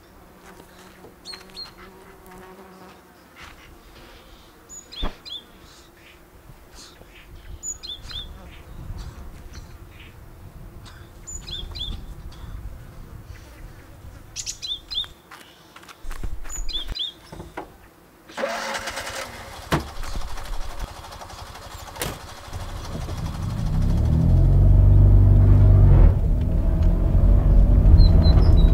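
Small birds chirping in short paired high notes at intervals over quiet countryside ambience. In the last few seconds a car engine comes up loud and runs steadily.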